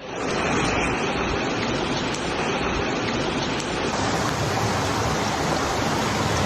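Floodwater rushing, a steady even hiss with a slight change in tone about four seconds in.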